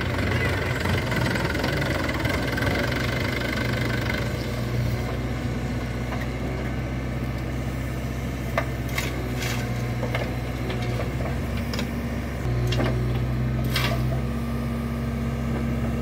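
Diesel engines of a tractor and a JCB 3DX backhoe loader running steadily while the backhoe loads soil into a tractor trolley, with a few sharp knocks. The engine hum steps up about twelve seconds in.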